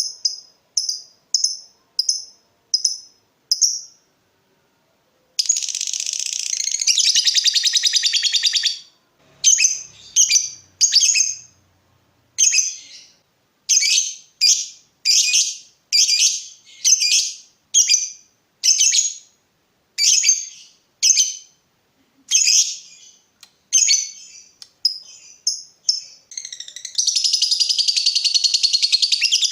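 Lovebird calling in high, sharp notes: runs of short separate chirps (the 'ngetik' ticking) broken by long unbroken chattering trills (the 'ngekek'). One long trill comes about five seconds in and lasts some three seconds, and another begins a few seconds before the end.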